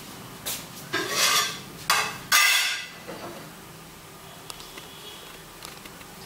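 Kittens scuffling on a hard floor: a handful of sharp scratches and knocks in the first three seconds, the loudest about two and a half seconds in, then only faint ticks of claws.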